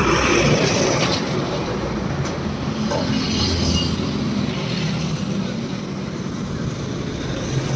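A heavy vehicle's engine running steadily with a low rumble, and a few sharp metallic clicks in the first three seconds.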